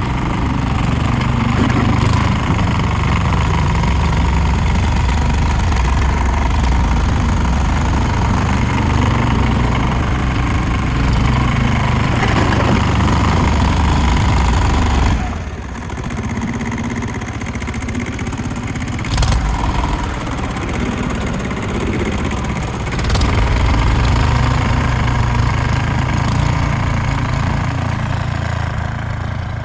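Tractor engine running steadily as it pushes snow with its plow. The engine drops away about halfway through and comes back up a few seconds later, with a short sharp click in between.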